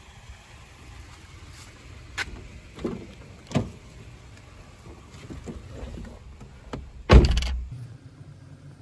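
Honda Fit's driver door being opened, with a few sharp clicks of the handle and latch, then lighter knocks as someone climbs in, and a loud thud about seven seconds in as the door shuts.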